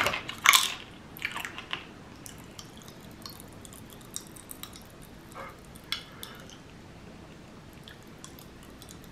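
Popping candy, like Pop Rocks, popping in the mouth: scattered small pops and ticks, thickest in the first couple of seconds, then sparser.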